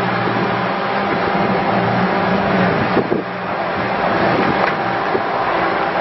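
Kubota diesel engine of a 2012 Bobcat S630 skid steer loader running steadily with a low hum as the machine drives over gravel.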